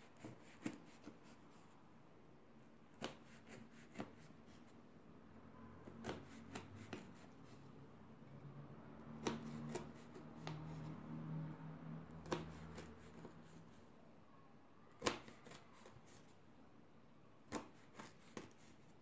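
A kitchen knife slicing through a rolled filo-pastry log with a tahini and walnut filling, each cut ending in a sharp click as the blade meets the hard tabletop: about a dozen clicks at uneven intervals. A faint low hum comes in for a few seconds in the middle.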